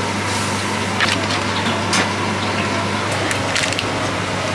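Steady low hum and background noise at a street food stall, with a few sharp clicks and taps from food and dishes being handled: one about a second in, another about two seconds in, and a quick cluster a little past three seconds.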